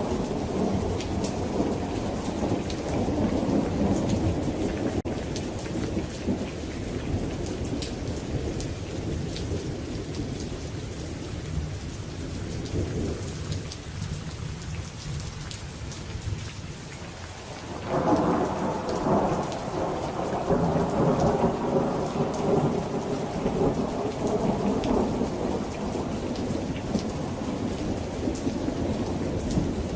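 Steady rain pattering with rolling thunder. The rumble eases off through the middle, then a new roll of thunder breaks in suddenly about two-thirds of the way through and rumbles on.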